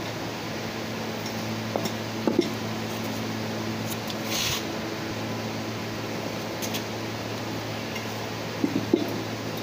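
Steady hum of a workshop fan, with a few light metal clinks and knocks from EGR valve parts being handled, once about two seconds in and again near the end. A brief hiss about four seconds in.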